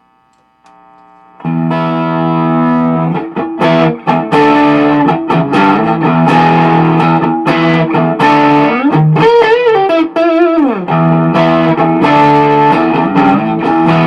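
Overdriven electric guitar with vintage single-coil Stratocaster pickups, played through a Sebago Double Trouble 25-watt 1x12 combo amp's distortion channel with a little reverb. A few soft notes open, then loud, sustained chords and lead lines start about a second and a half in, with string bends and vibrato in the middle.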